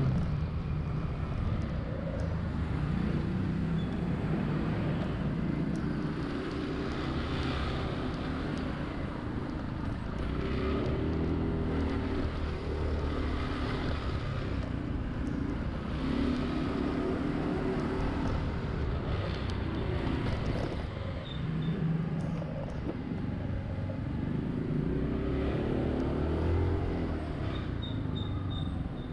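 Honda Zoomer-X scooter engine running under way, its pitch rising and falling several times as it speeds up and eases off, over steady road and traffic noise.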